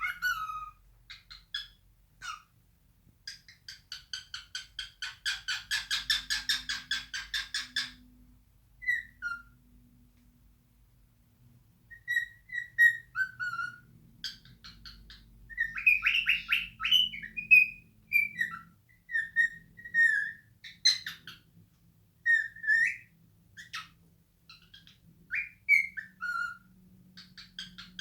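Male cockatiel singing its natural song: short whistled notes, many sliding down in pitch, broken twice by stretches of fast chattering warble.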